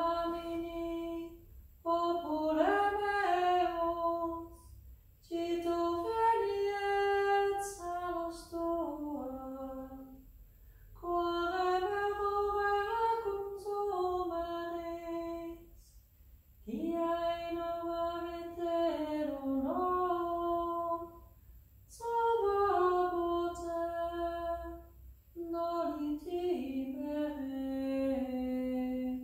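A woman singing a slow, unaccompanied religious chant in about seven short phrases of held notes, with brief pauses between them.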